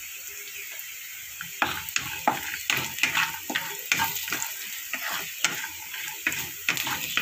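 Wooden spatula stirring turmeric into onions, peanuts and dal frying in oil in a kadhai, scraping against the pan about three times a second over a steady sizzle. The scraping starts about one and a half seconds in.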